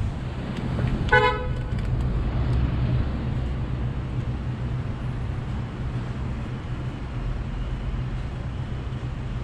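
A short, sharp vehicle horn toot about a second in, over a steady low hum of idling traffic.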